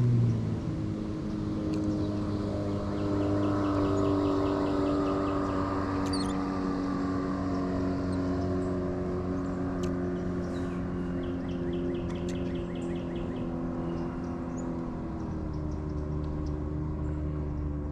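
Boat motor running steadily with an even hum. Its pitch drops as it is throttled back right at the start and steps lower again about fifteen seconds in.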